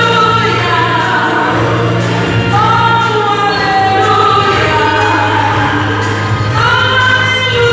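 Gospel hymn being sung in long, gliding held notes over a steady low sustained accompaniment.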